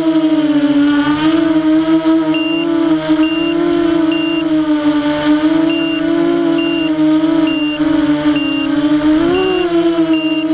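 F330 quadcopter's motors and propellers running with a steady whine as it lifts off and climbs, heard through its onboard camera; the pitch wavers with throttle and swells briefly near the end. From about two seconds in, a short high electronic beep repeats about once a second.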